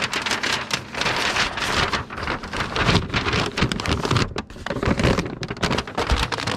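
Tyvek mailing envelope crinkling and rustling as it is handled around a stack of comic books, an irregular crackle with a few soft knocks.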